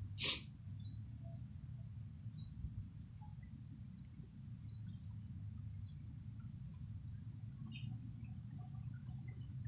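Steady low rumble of water running through a small stone-walled ditch, with a continuous high-pitched whine over it and faint scattered chirps. There is one short sharp click just after the start.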